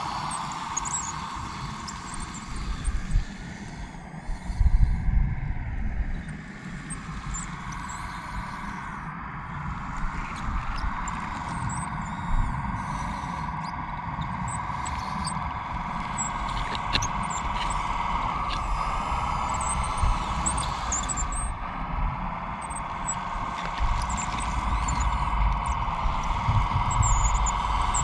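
Whine of the motors in a radio-controlled Caterpillar D5G bulldozer model, its pitch shifting slightly as it drives and pushes. Under it, dirt and stones crunch under the tracks and blade, with a few louder knocks about four to five seconds in.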